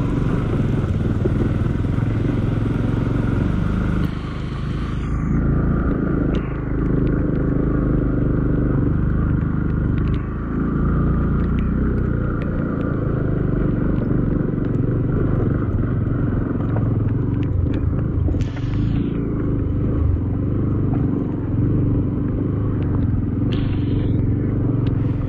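Motorcycle engine running steadily at low revs while riding slowly over a rough stone track, with a few short knocks or scrapes along the way. A hiss over the top fades out about five seconds in.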